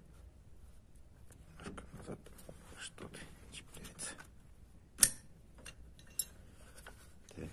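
Metal clicks and light knocks from a baler knotter mechanism being turned slowly by hand, with one sharp metallic click about five seconds in. The knotter is being cycled to check that its bill closes freely after repair of the hook gear.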